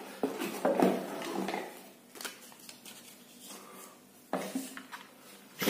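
A toy tractor model being lifted out of a cardboard box: cardboard rustling and scraping with light knocks, loudest about a second in, then scattered taps and a sharp click near the end.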